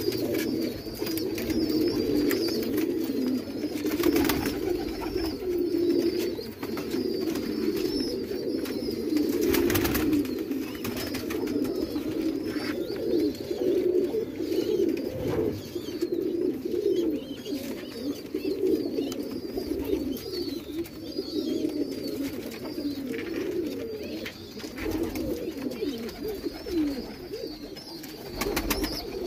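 Several domestic pigeons cooing continuously in a loft, their low calls overlapping, with a few brief knocks.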